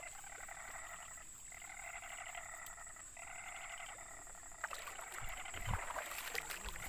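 Swamp frogs calling in a chorus of rapid pulsed trills, in bouts of about a second and a half, over a steady high-pitched whine. About two-thirds of the way in the trilling stops, and irregular clicks and knocks of handling take over.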